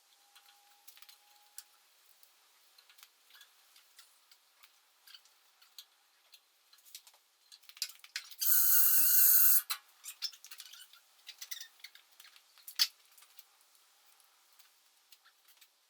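Small clicks and taps of hands and tools working on wiring, with one loud rasping hiss about a second long just past the middle and a sharp click a few seconds later.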